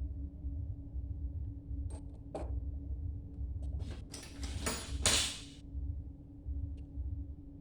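Steady low electrical hum with a few sharp clicks, then about a second and a half of scraping or rustling handling noise.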